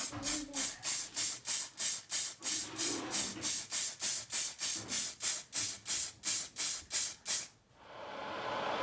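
Protective lacquer being sprayed onto a watch case, hissing in short, even bursts about three a second. The spraying stops near the end, and a steady rushing noise takes over.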